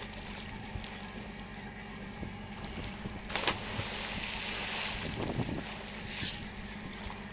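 A person jumps off a boat into the sea with a sharp splash a little over three seconds in, followed by about a second and a half of hissing spray. Under it runs the steady hum of the boat's engine.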